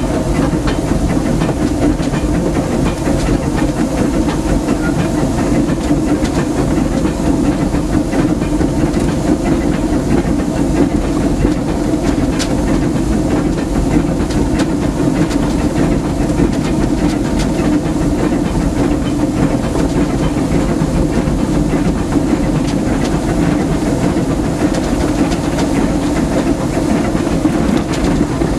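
4-4-0 steam locomotive "C.K. Holliday" under way, heard from inside its cab: a steady, loud running noise of steam and wheels on the track.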